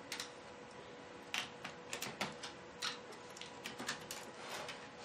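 Scattered light clicks and taps of hands handling a MacBook Pro logic board and its cables while reconnecting it, over a faint steady hum.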